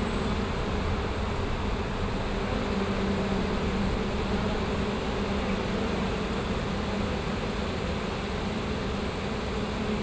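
Large honey bee swarm humming steadily: the massed drone of many bees' wings around the clustered swarm, with one low, constant pitch.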